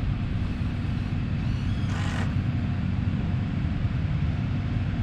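A car driving along a city street: steady low engine and road rumble heard from inside the car, with a brief hiss about two seconds in.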